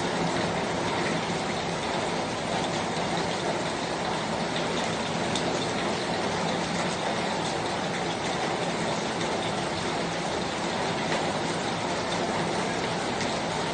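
Steady rain falling, a dense even hiss with scattered ticks of individual drops.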